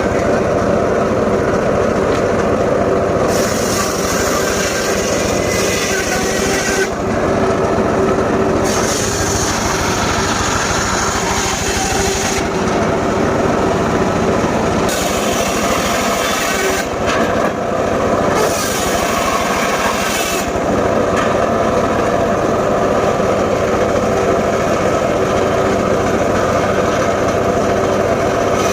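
Engine-driven saw running continuously and cutting gmelina wood, with a sharper cutting noise that comes and goes several times as the blade works through the timber.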